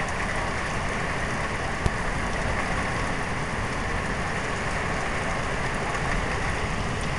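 Heavy rain pouring steadily in a severe thunderstorm, with one sharp tick about two seconds in.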